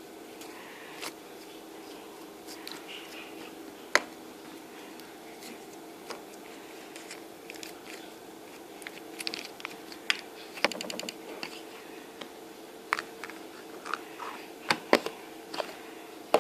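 Slime being handled, with scattered sticky clicks, crackles and pops that grow busier in the second half, over a steady background hum.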